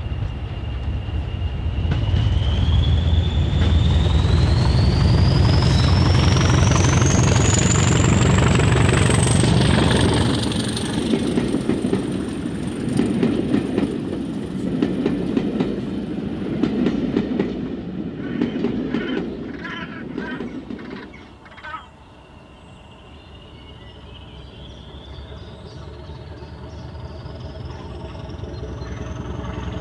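Class 20 diesel locomotive working hard: a deep engine rumble under a turbocharger whistle that rises steadily in pitch as it spools up, then the coaches rumble past with rhythmic wheel clatter over the rail joints. After a sudden drop a little past two-thirds through, the whistle starts rising again as the locomotive approaches once more.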